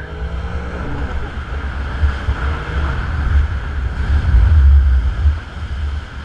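A Sea-Doo Spark jet ski's three-cylinder four-stroke engine running, with water rushing under the hull. Heavy wind buffeting on the microphone swells and falls over it and is loudest about four to five seconds in.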